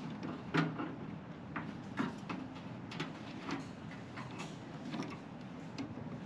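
Irregular clicks and light knocks from hands handling small plastic and metal parts inside a microwave, working the light bulb and its clip-in holder. The sharpest knocks come about half a second in and at about two seconds.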